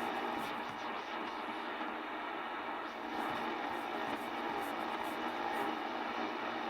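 Ten-Tec Paragon I HF receiver hissing with steady band static through its speaker while tuned between stations, no signal coming through. The noise is cut off below and above a narrow voice-width range, as heard through the receiver's filter.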